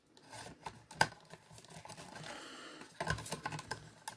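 Hard plastic parts of a toy mecha figure clicking and rubbing as a tight-fitting cockpit piece is wiggled into place. There is a sharp click about a second in, a soft rubbing in the middle, and a quick run of clicks near the end.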